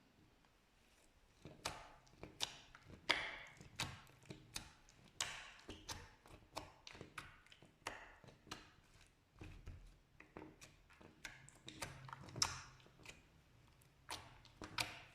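Slime being pressed and kneaded by hand, giving a quick irregular run of small sticky clicks and pops, several a second.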